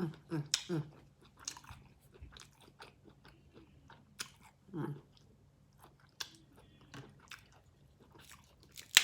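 A person eating seafood boil up close: wet chewing, smacking and crunching with scattered clicks of shells. A few short hums near the start and about halfway, and one sharp loud crack near the end.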